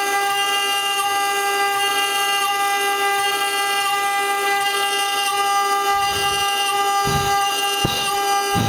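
CNC router spindle running at a constant high speed, giving a steady high-pitched whine. A few short low thuds come in near the end.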